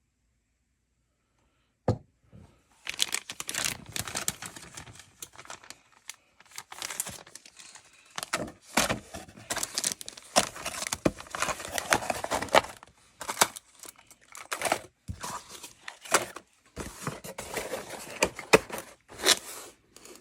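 Plastic packaging crinkling and rustling as it is handled, in uneven bursts with many small clicks. It starts after about two seconds of near silence and a single knock.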